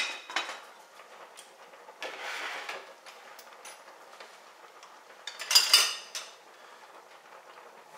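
A glass pot lid set down on a skillet with a clink, then metal kitchen utensils clattering loudly about five and a half seconds in as one is put into a utensil holder.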